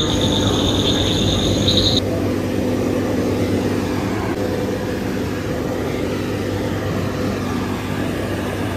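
An excavator's diesel engine runs steadily at a constant speed. For the first two seconds a steady high-pitched tone sounds over it, then cuts off.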